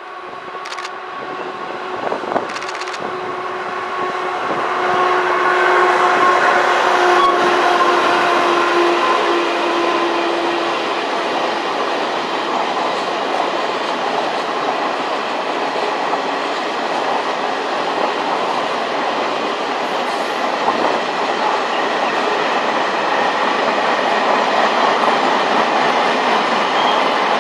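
E300-class electric locomotive and its freight train passing. There is a steady humming whine from the locomotive through roughly the first ten seconds. From about four seconds in, a louder continuous rumble and rattle of the freight wagons' wheels rolling on the rails takes over.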